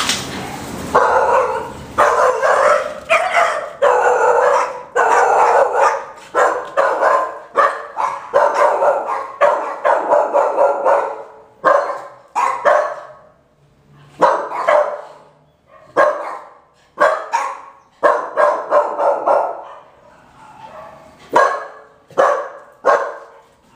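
Five-month-old boxer puppy barking repeatedly: a fast run of barks for about the first twelve seconds, then single barks roughly a second apart.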